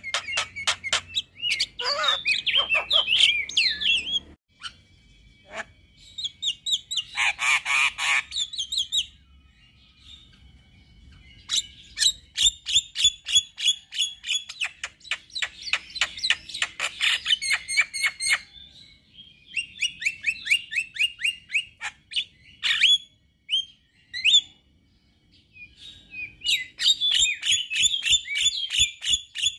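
Male Javan myna singing in phrases of rapid, repeated high notes, several phrases broken by short pauses.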